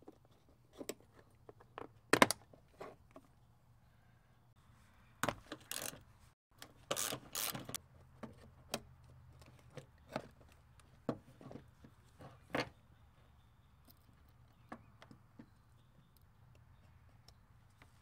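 Plastic seatbelt trim cover on a Toyota Tundra's B-pillar being pulled up and worked loose, with irregular clicks, knocks and scrapes of plastic and of the seatbelt's metal hardware being handled. The sharpest click comes about two seconds in.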